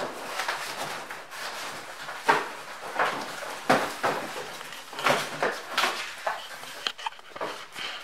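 Cardboard box and packing material being handled: irregular rustling and scraping with a few sharper knocks.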